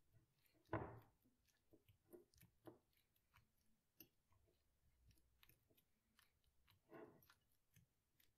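A fork mashing a ripe banana in a bowl: faint soft squishing with light clicks and taps of the fork, and a louder press about a second in and another near the end.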